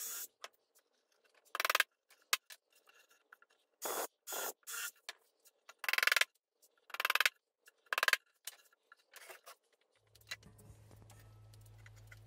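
A claw hammer striking a nail into pine boards: about nine separate sharp blows at irregular intervals, three in quick succession near the middle, with short pauses between. A faint low hum comes in near the end.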